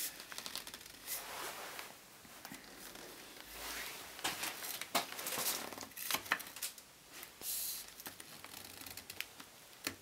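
Steel bottom-bracket spanner clicking and scraping against the notched cup of a bicycle bottom bracket as it is seated and levered, with scattered short clicks and a few longer scrapes.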